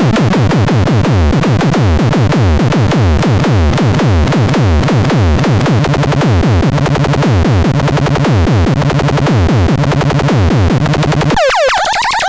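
Pharatron 2 synthesizer playing a rhythmic pattern of fast, downward-sweeping electronic zaps, about three a second, over a steady low drone. Near the end the bass drops out and higher, wavering sweeps take over.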